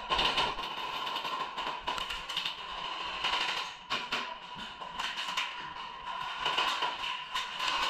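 Irregular sharp clicks and taps of an indoor airsoft game, such as shots and BBs striking the walls, over a steady high hum.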